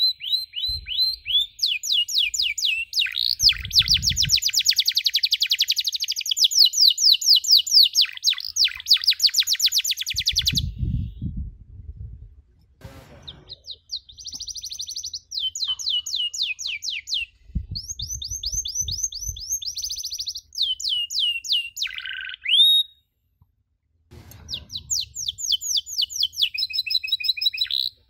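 Domestic canary singing: fast trills of repeated high notes, several phrases separated by short pauses, with one longer falling note late on.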